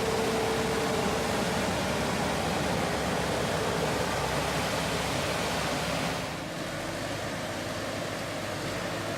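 Steady, even rushing noise of a running engine, which eases noticeably about six seconds in.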